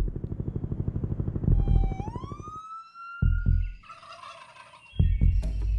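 Layered sound effects: a fast low throbbing, then one long cry that rises in pitch and holds before cutting off, like a rooster crowing. About five seconds in, heavy drum hits come in as music begins.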